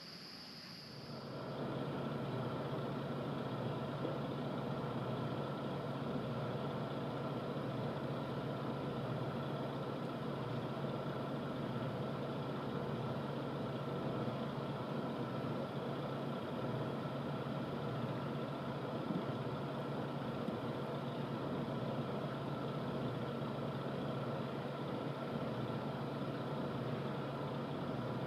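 A boat engine idling steadily, starting about a second in and holding an even, unchanging pitch and level.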